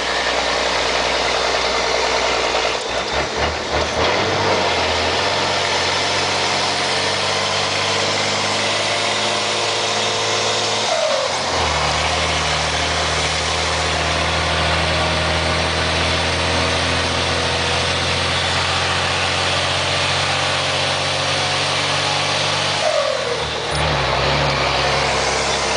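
Scania 112 truck's 11-litre straight-six diesel running, its engine note changing three times as the revs shift.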